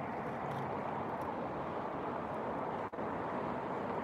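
Steady outdoor background noise with no distinct events, cutting out for an instant about three seconds in.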